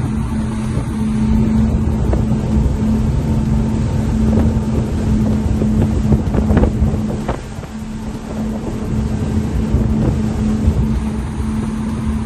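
Outboard engines of a 39-foot Contender center-console boat running under way with a steady drone, and wind buffeting the microphone.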